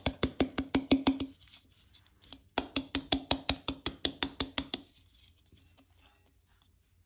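Rapid tapping on a clear ornament ball held upside down, about six or seven taps a second, in two runs with a pause of just over a second between, knocking the excess glitter out of it.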